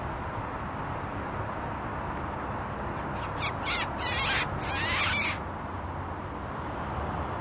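Squeak call imitating a distressed rodent, made to lure a weasel: a few short squeaks about three seconds in, then three longer squeaky bursts over the next two seconds.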